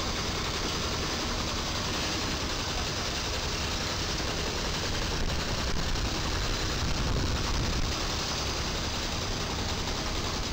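Diesel engine of a dump truck idling close by: a steady rumble over street traffic noise.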